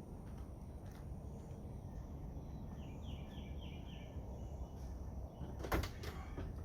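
Steady low background noise with a bird chirping a quick run of four short notes about halfway through, then a single sharp knock near the end.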